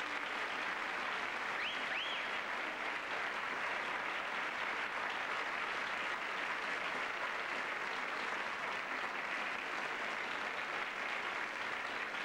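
Theatre audience applauding steadily as a guest star walks on stage, with two short whistles from the crowd about two seconds in.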